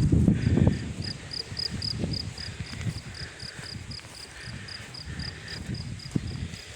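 Cricket chirping steadily, short high chirps at about four a second. Low rustling and handling noise is loudest in the first second or so.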